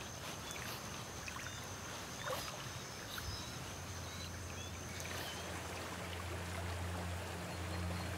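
Running river water, a steady wash. A low steady hum builds in the second half.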